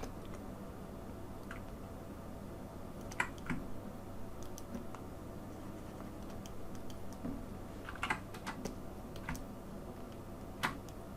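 Scattered computer keyboard and mouse clicks, a few at a time with gaps between, over a faint steady hum.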